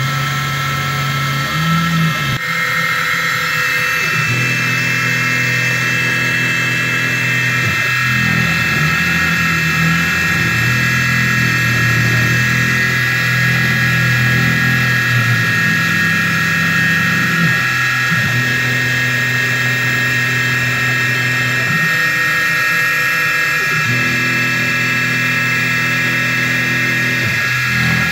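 Small benchtop CNC mill milling acetal plastic with a quarter-inch two-flute carbide end mill, its spindle at about 2500 rpm: a steady machine whine with a lower hum that changes pitch every few seconds as the cut moves.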